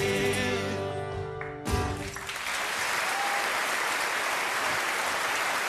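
Two acoustic guitars let a chord ring out, end with a sharp final hit about a second and a half in, and then a theatre audience breaks into steady applause.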